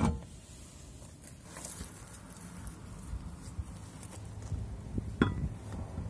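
Metal knocks and clinks from a car wheel being worked off the hub and the spare wheel fitted: a sharp knock at the very start and another about five seconds in, with low steady background noise between.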